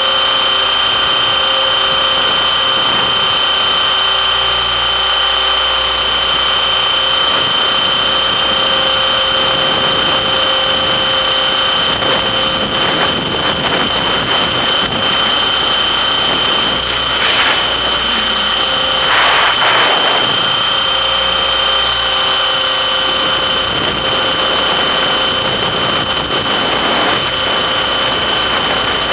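Radio-controlled helicopter flying under Arducopter control: a steady, loud high-pitched whine from its motor and rotor drive, with a few brief rushes of noise in the middle stretch.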